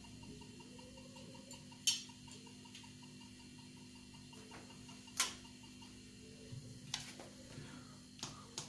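Metronome ticking faintly and evenly, with two sharp knocks from a bass guitar being handled about two and five seconds in. Near the end, evenly spaced clicks about three a second begin.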